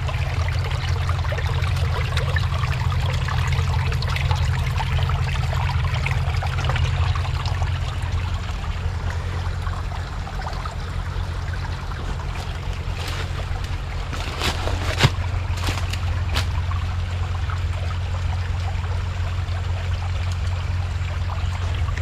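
Small rocky stream trickling steadily down a natural channel over sheet rock, with a continuous low rumble under the flow. A few sharp clicks come about two-thirds of the way through.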